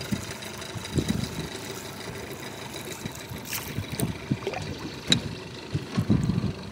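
Water sounds from a paddled canoe: paddle strokes and trickling water, with irregular low thumps throughout.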